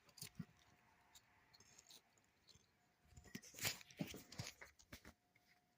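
Quiet footsteps and scuffs on a barn floor. A few louder steps and knocks come about three to five seconds in.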